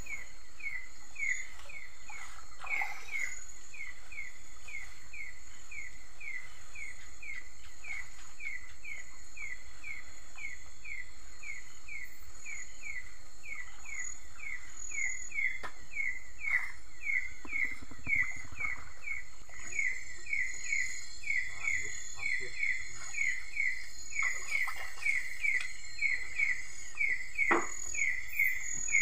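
Night-time chorus of insects: a steady high, thin drone under a short chirping call repeated about twice a second, with the chirps growing louder in the second half.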